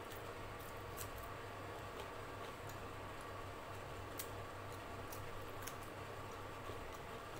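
Faint mouth clicks and smacks of someone eating, coming irregularly about once a second, over a steady background hum.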